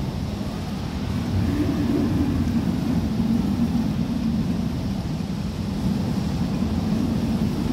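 Typhoon wind blowing hard and steadily, a dense low rushing noise that grows a little louder after the first second or so.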